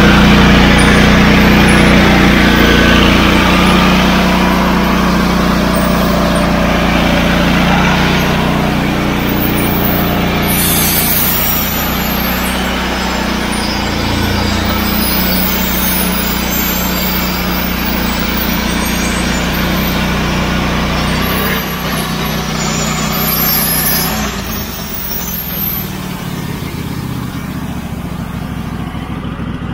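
Engine-driven portable sawmill running under load as its blade saws lengthwise through an oak log. Steady and loud, easing off and quieter over the last several seconds.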